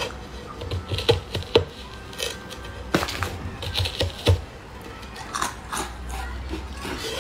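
Sharp, irregular crunching clicks of bites into a hard, guitar-shaped colored ice treat, with chewing between them, the loudest a little past four seconds in.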